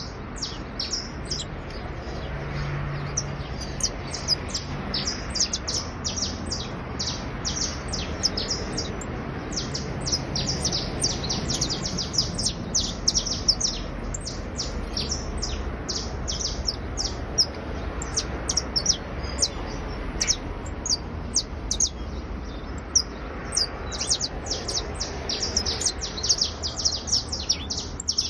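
Criollo canary (common 'basto' type) singing a long, fast song of high chirps and trills, note after note with only brief lulls.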